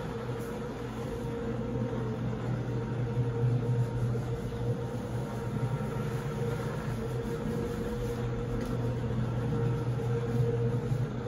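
Single-disc rotary floor machine running steadily, its brush scrubbing shampoo through a wet shag rug: a constant motor hum with a low drone under it.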